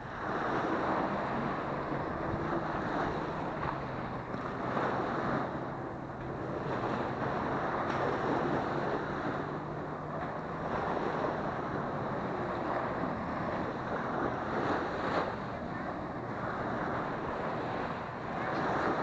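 Small waves breaking and washing up a sandy beach in swells, with wind buffeting the microphone. A low steady engine hum runs underneath and fades out about two-thirds of the way through.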